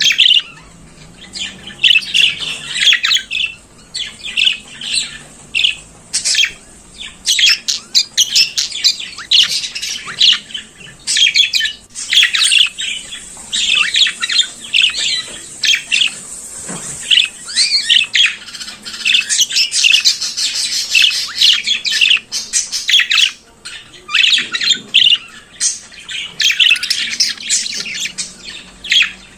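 Budgerigars (Melopsittacus undulatus) singing: a continuous, rapid chatter of warbles, chirps and squawks.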